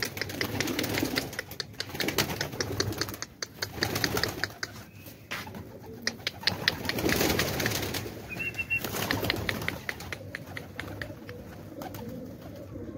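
Domestic pigeons cooing in repeated low swells every few seconds over a fast, steady run of sharp clicks, with one brief high chirp past the middle.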